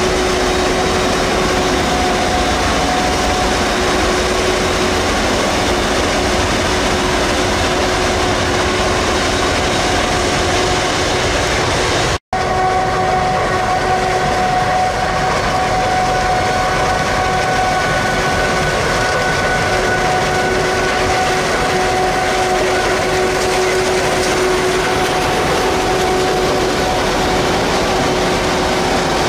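Claas Jaguar 990 forage harvester chopping maize, its engine and chopper running steadily under load with a high, steady whine over the noise. The sound breaks off for an instant about twelve seconds in.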